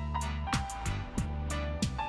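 Background music with a steady drum beat over held bass and melody notes.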